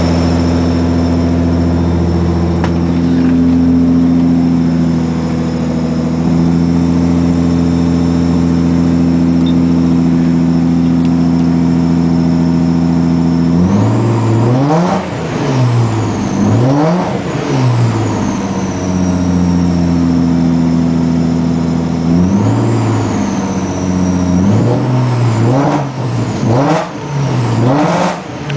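1996 Ford Probe GT's 2.5-litre KLZE V6 running at a steady speed, then revved up and down several times from about halfway through, with uneven dips in the sound as it revs. This is the misfire the owner gets on even light revving, which he wonders may come from old, melted spark plug wires.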